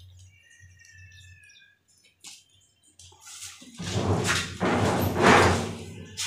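Sheet-metal door being pushed open, a noisy scrape and rattle in two parts lasting about two seconds, starting partway through after a quiet stretch.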